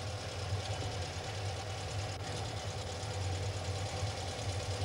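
Vehicle engine running steadily at low speed, a low even hum with no change in pitch.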